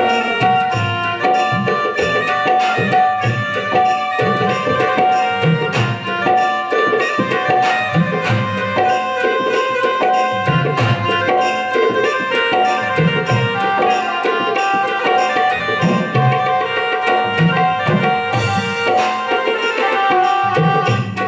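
Instrumental interlude of a Hindi devotional bhajan: tabla playing a fast, steady rhythm under held melodic notes from the accompanying instrument, with no singing.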